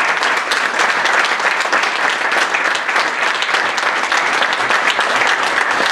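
Audience applauding steadily, a dense, even clapping of many hands.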